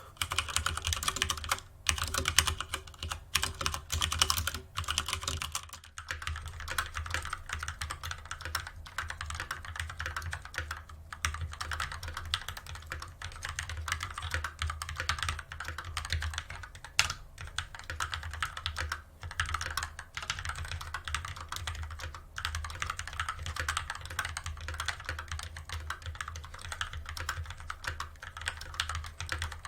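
Continuous fast typing on a mechanical keyboard, a dense run of irregular key clacks. About six seconds in there is a short break and the sound of the keystrokes changes.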